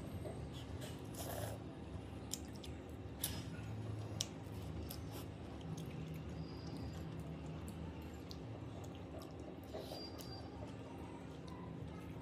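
Metal fork clicking and scraping against a glass bowl while noodles are stirred and lifted, with soft chewing, over a low steady hum.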